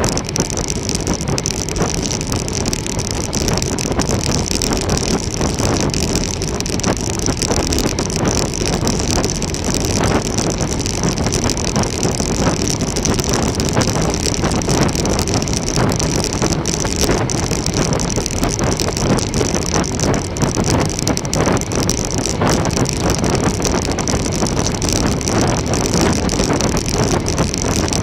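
Steady wind rushing over the microphone and tyre and road noise from a road bike riding along, with a constant high hiss.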